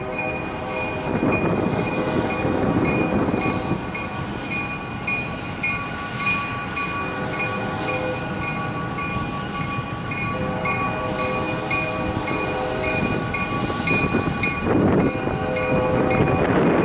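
EMD GP40-2 diesel locomotive rolling slowly with a freight train while a bell rings steadily in a fast, even rhythm. Long sustained chords from its Leslie RS5T five-chime horn sound through the middle.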